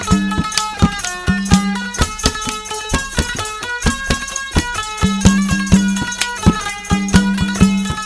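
Instrumental interlude of a folk devotional bhajan, with no singing: a melody line over a steady percussive beat.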